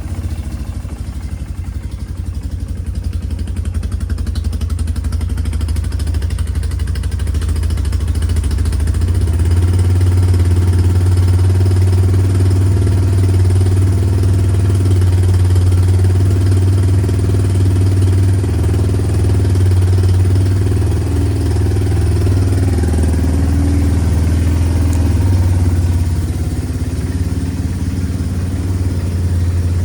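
Yamaha Bear Tracker ATV's single-cylinder four-stroke engine idling on choke after a cold start. The idle gets louder over the first ten seconds or so, then runs steady.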